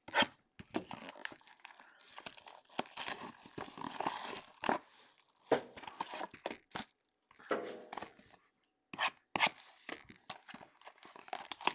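Trading-card box and its foil-wrapped packs being torn open by hand: irregular tearing and crinkling of wrapper and cardboard, with a few short pauses.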